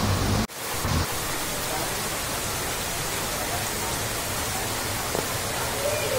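Steady hiss of heavy rain falling on a waterlogged street. A low rumble at the start cuts off abruptly about half a second in.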